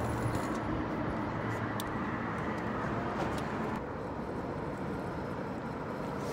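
Steady traffic noise from vehicles crossing a highway bridge overhead, with a low hum and a few faint clicks.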